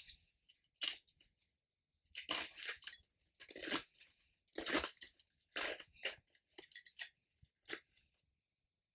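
Plastic masking sheeting being handled and pulled: a run of irregular crinkling, crunching noises in short bursts, loudest in the middle.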